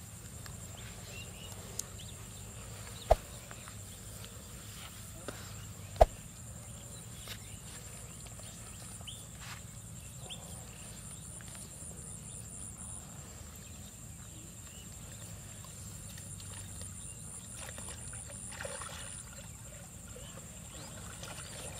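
Open-field ambience with a steady high-pitched drone, broken by two sharp knocks about three and six seconds in. Near the end a short splash comes as a long-handled hand net is pushed into shallow paddy water.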